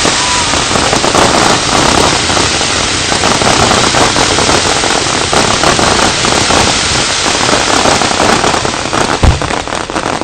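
Fireworks crackling densely: an unbroken mass of small pops, with a deep thump about nine seconds in. The crackling thins out right at the end.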